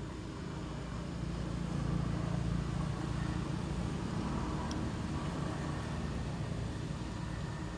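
Low rumble of a distant motor vehicle passing, swelling about two seconds in and slowly fading.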